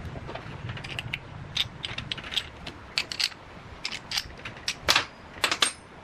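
Irregular light metallic clicks and clinks of small parts or tools being handled, with the sharpest knocks clustered about five seconds in.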